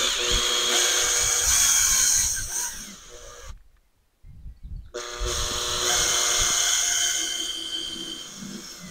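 Makita cordless drill boring a 6 mm bit through the plastic hull of a kayak, opening up 3 mm pilot holes: two runs of steady whining with a hiss of cutting plastic, the first about three and a half seconds long, then a short pause and a second run.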